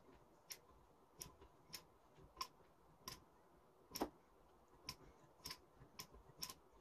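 Faint, sharp clicks, a little under two a second and slightly uneven, from a hand screwdriver being turned back and forth in a linear-rail carriage block; the loudest click comes about four seconds in.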